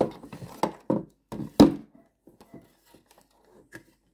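Handling noise as a battery pack and its wire connector are lifted out of a plastic RC boat hull: rustling and small clicks, with one sharp plastic knock about one and a half seconds in, then only faint ticks.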